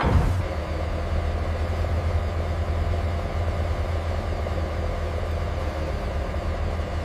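A steady, even engine-like drone with a strong low hum, starting suddenly at the beginning.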